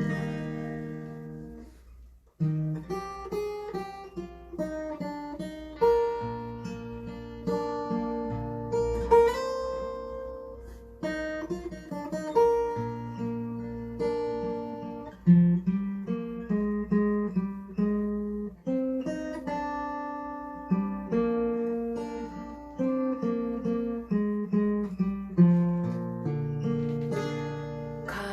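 Acoustic guitar playing a song's instrumental intro: plucked chords, note after note each ringing and fading, with a brief pause about two seconds in.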